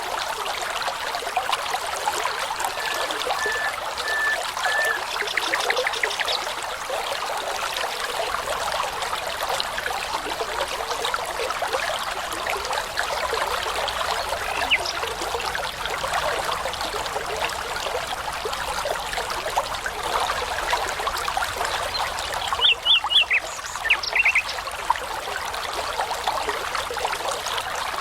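Babbling brook running steadily, with songbirds singing over it: a run of four short whistled notes a few seconds in, then louder quick chirped phrases a little before the end.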